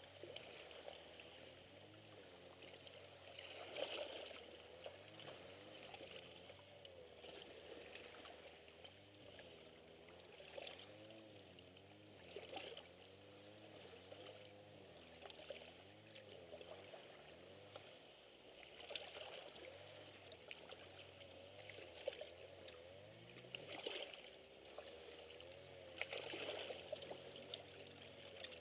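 Faint small sea waves lapping and splashing against shoreline rocks, with irregular soft surges every few seconds.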